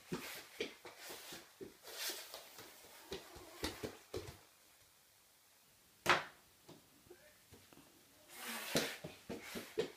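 A toddler's quick, irregular footsteps and knocks around a wooden play table, pausing briefly, then one sharp knock about six seconds in and more scattered taps near the end.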